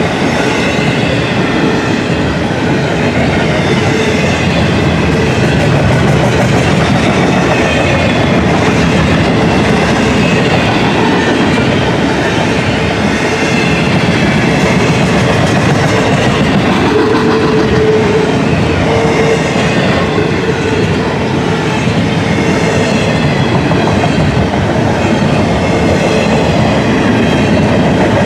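Freight train of double-stack intermodal container well cars rolling past, a loud steady rumble with the clatter of wheels over the rails.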